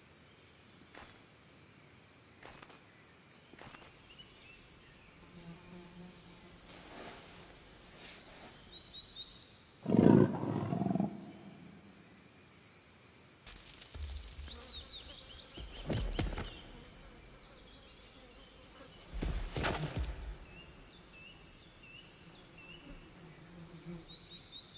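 Bengal tigress vocalizing: one loud, low call lasting about a second and a half, about ten seconds in, then two shorter, quieter sounds. A steady high-pitched buzz runs underneath.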